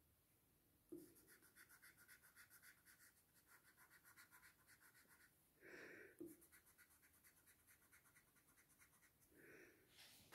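Paper blending stump rubbing graphite shading on drawing paper in quick, faint back-and-forth strokes, about five a second, with a break near the middle. Two short soft puffs of noise are heard, one near the middle and one near the end.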